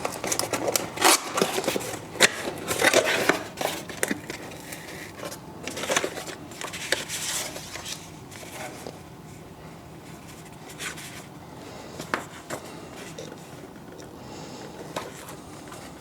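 Packaging being opened and handled: crinkling, scraping and sharp clicks, dense for about the first eight seconds, then only a few scattered clicks.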